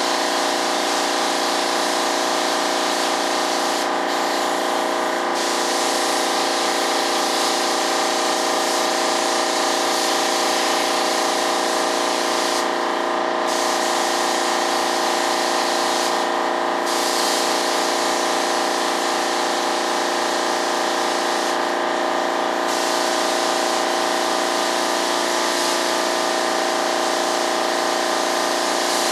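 Air compressor running steadily under the hiss of a spray gun laying down primer; the spray hiss stops briefly four times as the trigger is let off, while the compressor hum carries on.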